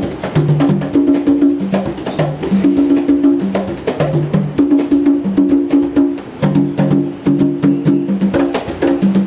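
Several hand drums played together in a fast, continuous rhythm: many sharp strokes and short ringing tones at a few different pitches.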